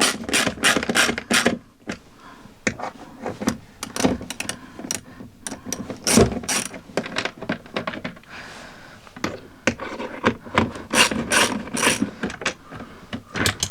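Hand ratchet with an 8 mm socket clicking in repeated quick runs as it drives the door speaker's mounting screws, with short pauses between runs.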